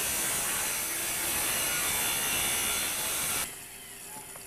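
Circular saw cutting through corrugated tin roofing panels, running loud and steady, then cutting off abruptly about three and a half seconds in.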